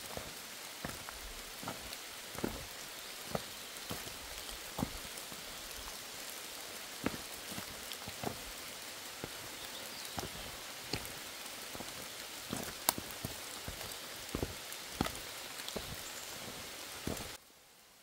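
Heavy summer rain shower falling in a forest: a steady hiss of rain with scattered irregular taps and knocks. It cuts off suddenly near the end.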